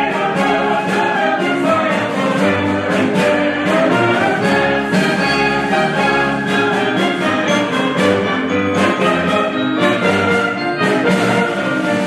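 Mixed choir singing with a brass ensemble of trombones and tuba accompanying, the music continuous and full throughout.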